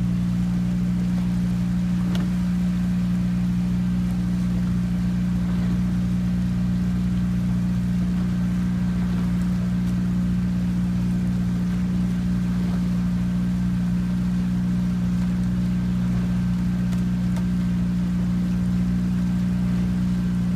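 Small motorboat's engine running at a steady speed, a constant low drone that holds unchanged, likely from a coaching launch pacing a rowing eight.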